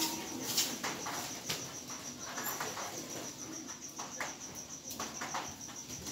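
A cricket chirping in a steady, fast trill of high pulses, with a few light taps and clicks over it.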